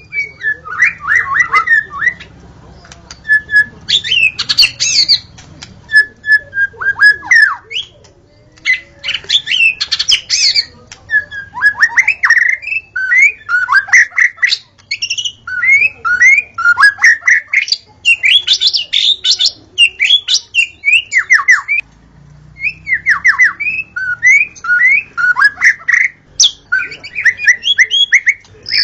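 White-rumped shama singing: a long run of loud, varied phrases of rapid whistled notes and quick downslurred chirps, with short pauses between phrases.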